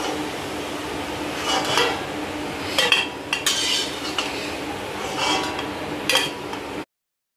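Pumpkin, soya and egg fritters sizzling in hot oil in an iron wok, while a steel spatula scrapes and clinks against the wok and a steel plate about five times as the fried pieces are lifted out. The sound cuts off abruptly near the end.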